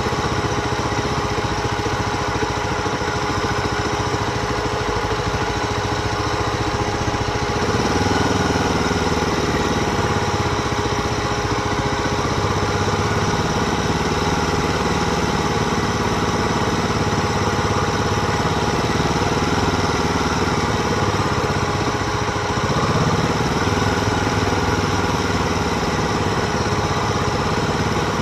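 Continuous riding noise of a mountain bike, tyres rolling and wind on the camera, with a steady hum throughout.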